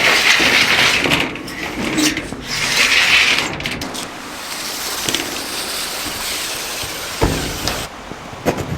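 Malco TurboShear on a cordless drill cutting through old barn tin roofing sheet, a harsh hissing rasp that comes in surges over the first few seconds and then runs on more evenly, with a sharp knock about seven seconds in.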